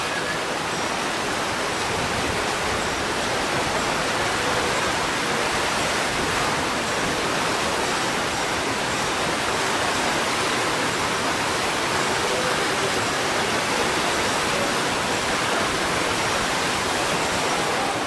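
Rushing white water in a rafting ride's artificial rapids channel, a steady, unbroken rush.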